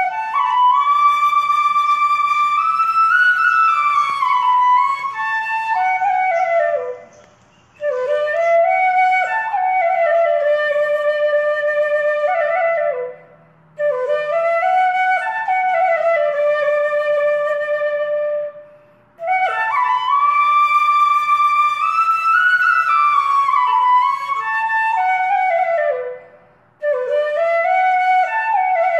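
Background music: a solo flute playing slow melodic phrases with sliding, bending notes, each a few seconds long and separated by brief pauses.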